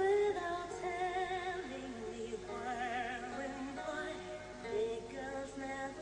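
A woman singing a song with musical accompaniment. She slides up into a held note at the start and carries later held notes with a wide vibrato.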